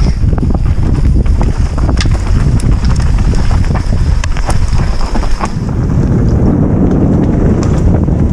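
Mountain bike descending a rough dirt trail at speed: heavy wind buffeting on the microphone over tyres rolling on dirt and stones, with scattered sharp clicks and rattles from the bike.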